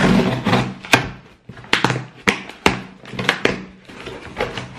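Cardboard box being opened: scissors slicing along the packing tape, then the flaps pulled back and paper packing rustling, with a run of sharp knocks and scrapes of cardboard.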